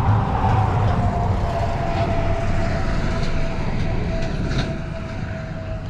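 A road vehicle passing on the nearby highway bridge: a steady drone over a low rumble, with a single whine that slowly falls in pitch and fades toward the end.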